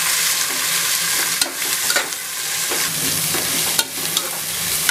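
Sliced onions sizzling in hot sesame oil in an aluminium pressure cooker as they are stirred with a slotted metal ladle: a steady frying hiss, with a few sharp clicks of the ladle against the pot.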